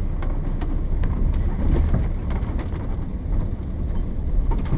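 Four-wheel-drive vehicle driving off-road: a steady low engine and drivetrain rumble with scattered light knocks and rattles.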